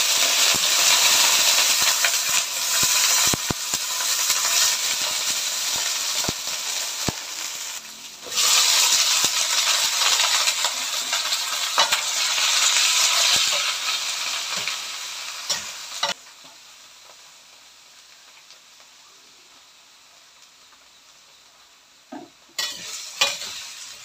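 Cubed bottle gourd sizzling loudly in hot oil in a stainless steel wok, freshly added and giving off steam, while it is stirred with a spatula. The sizzle dips briefly, swells again about eight seconds in, then falls to a faint hiss at about sixteen seconds, with a few spatula knocks against the pan near the end.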